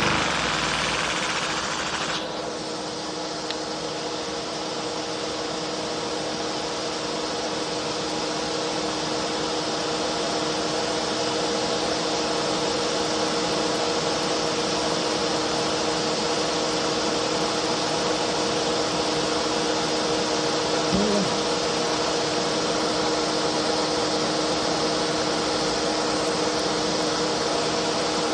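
Homemade supercharged turbine idling: a steady whirring whine over a strong hiss, with two fixed tones held throughout. About two seconds in, the upper hiss drops back and the sound settles to an even, unchanging note.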